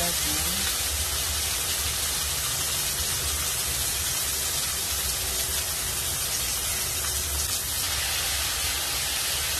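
Pork slices frying in oil in a pan, a steady sizzling hiss.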